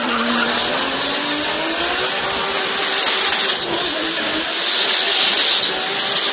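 Car engine held at high, wavering revs as the tyres spin in a smoky burnout, with a continuous high hiss over the engine note.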